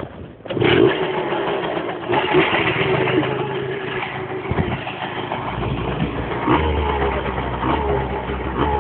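A vehicle engine starts up about half a second in and keeps running steadily. A deeper engine rumble joins about five and a half seconds in.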